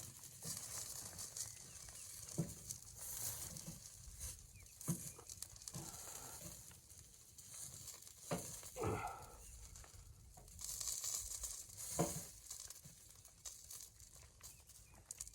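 Rustling and crinkling with a handful of scattered knocks, the sharpest about twelve seconds in.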